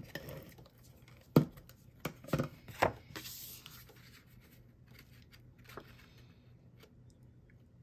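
Hands handling cardstock and pressing a layer down on a desk: a few knocks and taps in the first three seconds, the loudest about a second and a half in, then a brief papery rustle and quieter handling.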